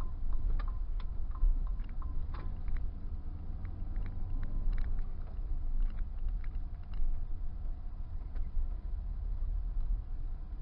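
Car cabin noise picked up by a dash cam's microphone: a steady low engine and road rumble with scattered light clicks and rattles, more of them in the first half.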